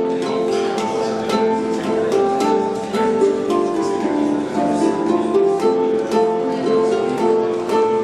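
Harp and handpan playing together: plucked harp strings over ringing notes struck on the steel handpan, in a steady, even run of notes.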